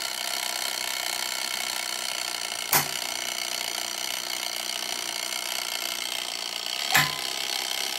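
Rolls-Royce Artouste jet engine starter panel running through its start sequence: a steady mechanical whirr from its clockwork sequencing mechanism, with two sharp relay clunks, about three seconds in and again about seven seconds in.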